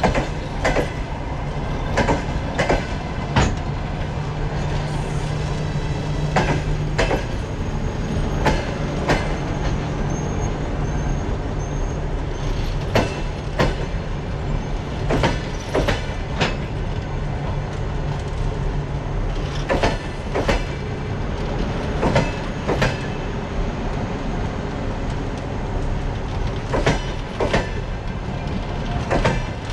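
Passenger coaches rolling slowly past with a steady rumble, the wheels clacking over rail joints in pairs about half a second apart every few seconds.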